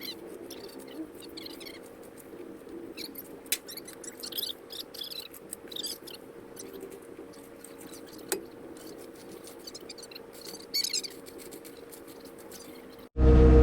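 Small birds chirping in short, high, squeaky calls over a faint steady machine hum, with a couple of sharp clicks. Near the end it cuts suddenly to a loud heavy-equipment engine running.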